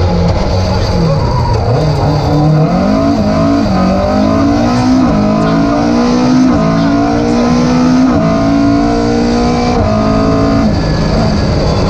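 Opel Kadett rally car's engine heard from inside the cabin, accelerating hard through the gears: its pitch climbs and drops back at each of several upshifts, then settles lower as the driver lifts off near the end.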